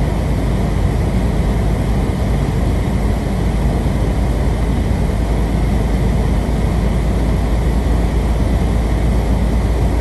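Steady low road and wind noise of a car driving on a snow-covered road in strong wind, heard from inside the cabin.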